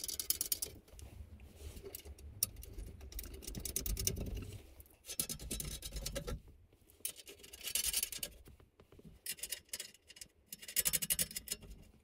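Small nuts and washers being handled and threaded hand-tight onto the studs of a metal console safe's brackets: scratching and light clicks in a few short clusters.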